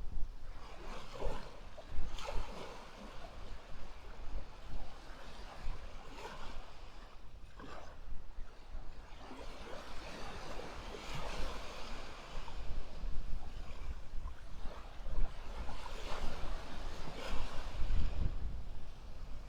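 Waves breaking and washing on the shore, the surf noise swelling and falling every few seconds, with wind rumbling on the microphone.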